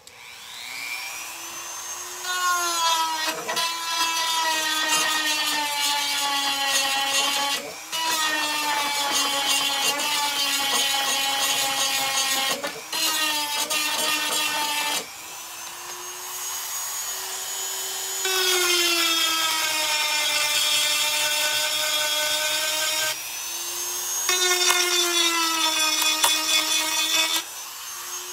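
Handheld rotary tool spinning up and running at high speed as a high whine, grinding old hardened glue off a wooden drawer. Several times the bit is pressed to the work, and the whine drops in pitch and gets louder before easing off again.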